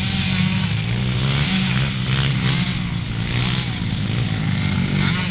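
Several racing motorcycle and ATV engines running at once, their pitches rising and falling as they rev and ease off through the laps.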